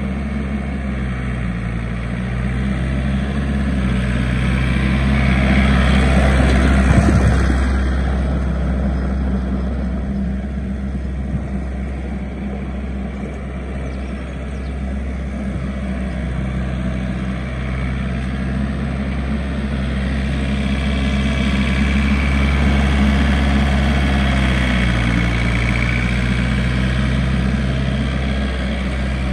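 Iseki four-wheel-drive compact tractor's diesel engine running as it drives around, with its engine note shifting up and down a few times. It gets louder as the tractor passes closest, about six seconds in and again in the second half.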